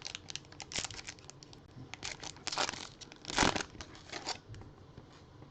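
A baseball card pack's wrapper being torn open and crinkled, in a string of short ripping, rustling bursts, the loudest about three and a half seconds in.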